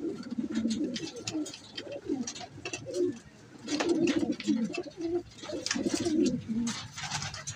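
Racing pigeons cooing in their loft: several low, warbling coos overlap and follow one another throughout, with scattered short clicks among them.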